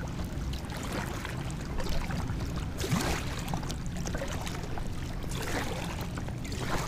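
Kayak paddle strokes in lake water: a few short splashes and trickles as the blade dips and lifts, over a steady low rumble.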